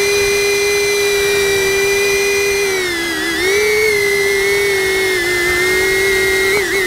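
DJI Avata FPV drone's ducted propellers whining steadily, heard from on board the drone. The pitch dips briefly about three seconds in and again near the end.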